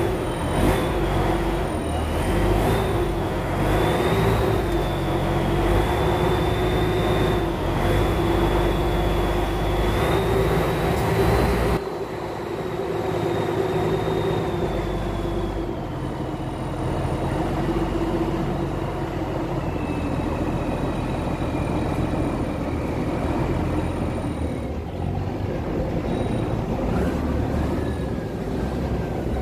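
River cargo boat's engine running steadily, with a high whine above it that wavers and then slides slowly lower in the second half. The sound turns duller about twelve seconds in.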